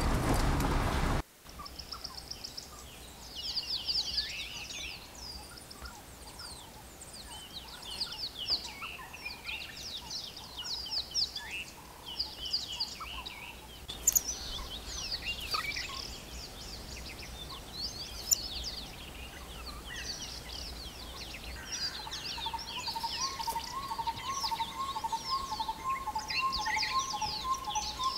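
Several wild birds chirping and twittering in a chorus of short high notes, after a loud stretch that cuts off abruptly about a second in. Near the end, a lower note repeated about two or three times a second joins in.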